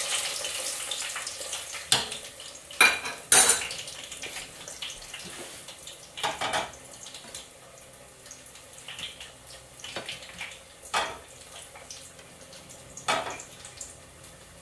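Metal utensil clinking and scraping against a cooking pot and plates in about ten separate knocks, as fried food is lifted out and set down. A hiss fades away over the first few seconds.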